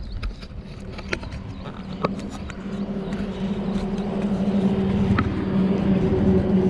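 Riding a bicycle on an asphalt highway: wind on the microphone and road noise, with a steady low hum that grows louder from about two seconds in, and a few sharp clicks.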